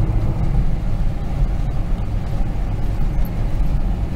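Steady low rumble of an older pickup truck driving, heard from inside the cab.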